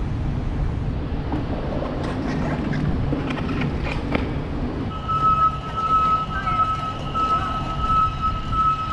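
Outdoor street ambience: low traffic rumble and wind on the microphone, with a few sharp clicks. About five seconds in, a steady high electronic tone starts and holds.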